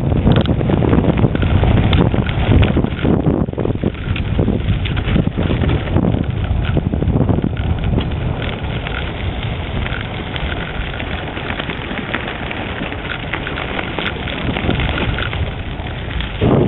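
Wind buffeting the microphone, with tyres crackling and rattling over gravel, as a recumbent bicycle rolls fast downhill. It is loudest in the first few seconds and eases somewhat in the middle.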